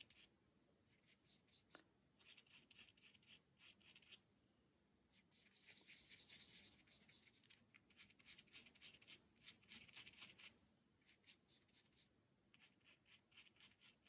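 Very faint scratching of a paintbrush's bristles being stroked over textured card, laying on paint in several short runs of strokes.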